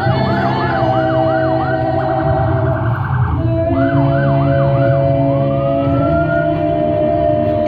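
Emergency-vehicle siren sounding: a run of quick up-and-down yelps, a rapid warble about two seconds in, more yelps, then a slow rising wail a little past the middle, over a steady lower tone and a low hum.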